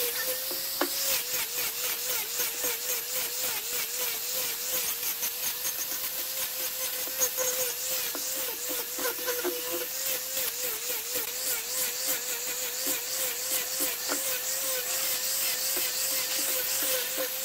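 Angle grinder with a sanding pad running and sanding a wooden axe handle: a steady motor whine whose pitch dips slightly, over and over, as the pad is pressed into the wood, over a hiss of abrasion.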